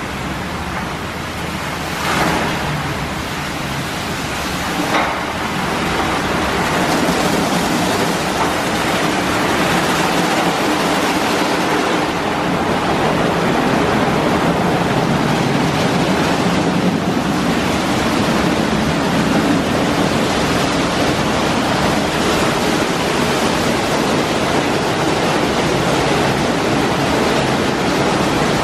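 Ryko SoftGloss XS 2 rollover car wash running: spinning brushes scrubbing a car under water spray, a steady rushing wash noise. Two brief knocks come about two and five seconds in, and the wash grows slightly louder after about six seconds.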